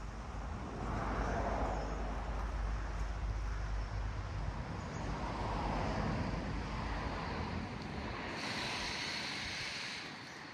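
Wind rumbling on the microphone outdoors, with slow swells of noise and a brighter hiss for a couple of seconds near the end.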